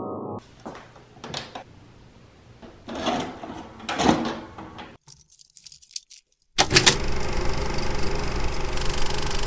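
Mechanical clicks and clunks of a VHS tape being loaded into a video cassette recorder. Then a brief silence, a click, and a steady hiss of VHS tape playback noise starting about seven seconds in.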